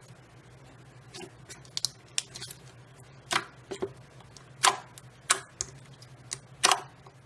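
Slime being squished and pressed by hand, giving a string of sharp, irregular clicks and pops.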